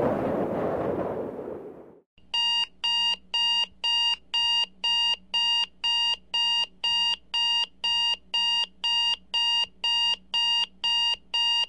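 A wash of noise fades away over the first two seconds. Then an electronic alarm clock beeps steadily, a little over two short beeps a second.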